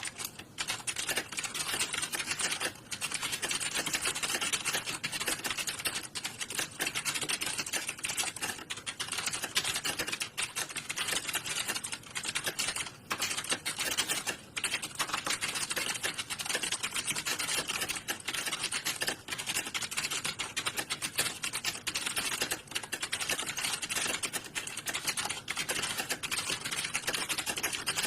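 Typing on computer keyboards: a dense, near-continuous clatter of key clicks, with a few brief lulls.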